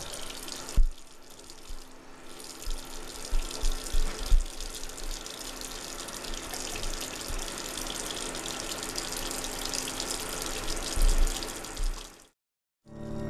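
Water running into a bathroom sink, with a few dull thumps scattered through it; the sound cuts off suddenly near the end.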